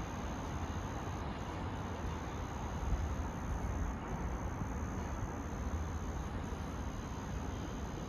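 Steady background noise: a low rumble with a faint, continuous high-pitched tone that drops out briefly a few times.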